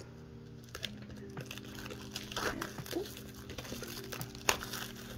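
Hands handling a cardboard DVD slipcase and its loose plastic wrap: plastic crinkling and light rustles and taps, with one sharper tap about four and a half seconds in. Soft background music with held notes underneath.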